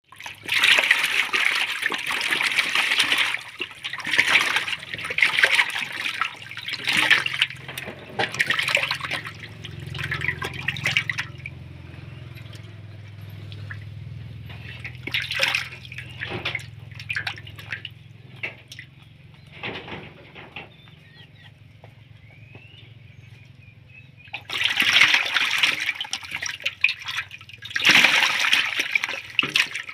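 Live fish thrashing in shallow water in a metal basin, splashing in loud bursts for the first ten seconds or so and again from about twenty-five seconds in. In between the water goes calmer, with only scattered single splashes.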